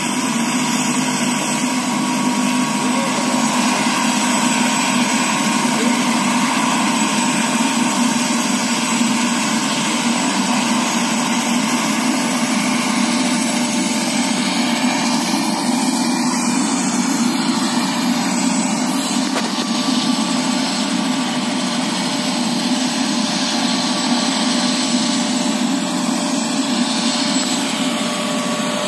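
Helicopter turbine engine running steadily on the ground, a continuous whine over a broad engine noise.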